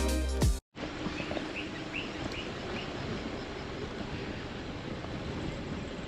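Background music cuts off just under a second in, giving way to a steady noisy outdoor background, with a few short bird chirps over the next couple of seconds.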